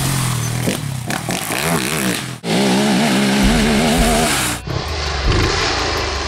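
Sport quad (ATV) engine revving hard, its pitch rising and falling as the throttle is worked on a dirt track. The sound drops out and changes abruptly twice, where one clip gives way to another.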